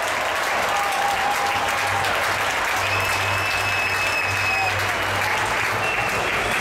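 Large arena crowd clapping and cheering, a dense steady wash of applause, with a thin high whistle-like tone held for about two seconds midway.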